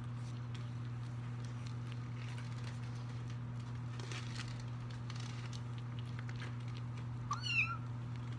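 A kitten gives one short meow near the end, rising then falling in pitch. Under it, faint small clicks of kittens chewing chicken and padding on a wooden floor, over a steady low hum.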